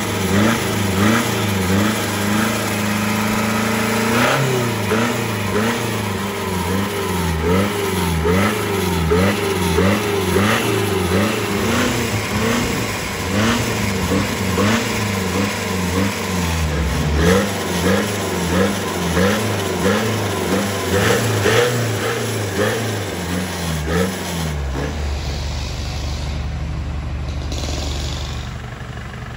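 Isuzu 3.0-litre inline-four turbo diesel fitted with five turbochargers, running steadily and then revved in quick repeated blips, about one a second, for some twenty seconds. Near the end it settles to a steady lower run.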